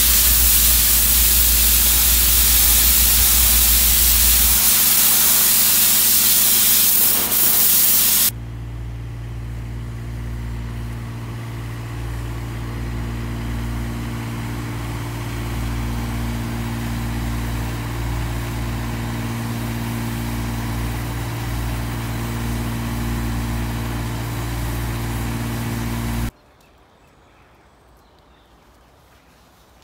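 DOFF steam-cleaning lance spraying superheated water onto sandstone: a loud, steady hiss over a low rumble, which cuts off about eight seconds in. A steadier, quieter machine hum with a slow pulse about every two seconds follows. It stops abruptly near the end, leaving faint outdoor ambience.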